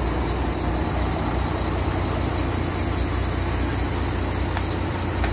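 A truck engine idling with a steady low drone, over the hiss of burger patties frying on a gas griddle.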